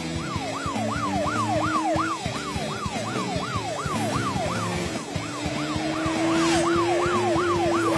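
Cartoon police car siren yelping, its pitch sweeping up and down quickly about two and a half times a second, over background music.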